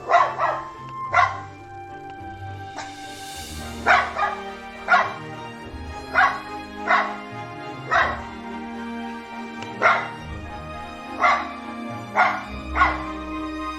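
A dog barking in single sharp barks, about a dozen of them spaced roughly a second apart, over steady background music.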